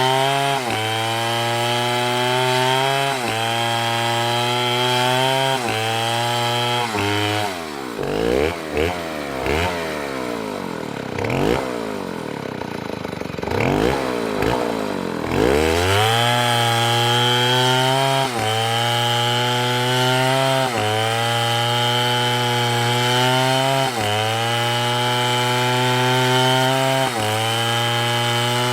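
STIHL chainsaw cutting wood at full throttle, its pitch dipping briefly under load every couple of seconds. About a third of the way in the engine drops off and its pitch swings up and down as it is throttled back and revved for several seconds, then it returns to a steady high cutting pitch.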